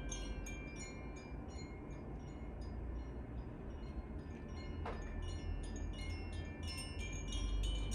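Carillon chimes being played: a stream of struck metal notes, several a second, ringing on over one another, with a low rumble underneath.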